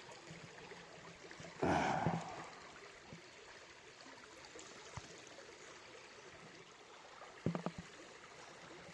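A short swish of water in a gold pan about a second and a half in, over a faint steady trickle of water; a few small clicks and a brief low murmur near the end.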